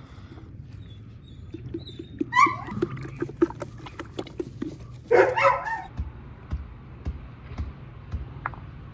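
Goat kid bleating: a short call about two and a half seconds in, then a longer, louder one about five seconds in, over a run of quick soft ticks.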